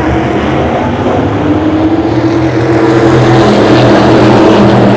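A pack of SK Light modified race cars running together at speed: a loud, dense drone of many engines, its pitch rising a little past the halfway point.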